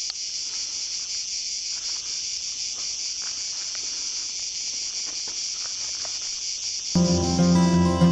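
A steady, high-pitched insect chorus, with a few faint clicks as the parang is handled and slid into its leather sheath. About seven seconds in, acoustic guitar music starts.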